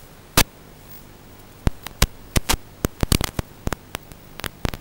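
A string of sharp, irregular clicks and crackles, about fifteen in all and bunched in the second half, over a faint low hum.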